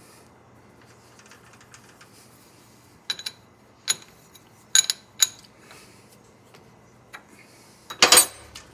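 Sharp metallic clinks and clicks, a few scattered singly and in pairs, then a louder cluster near the end, over a faint low hum: metal tools and parts being handled at a lathe.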